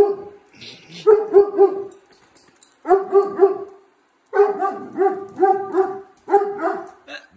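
Dog barking at a robot vacuum cleaner, in runs of two to five sharp barks with short pauses between them.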